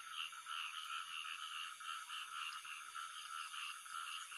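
Chorus of frogs calling in a paddy field: many overlapping calls at two pitches, pulsing steadily about three times a second.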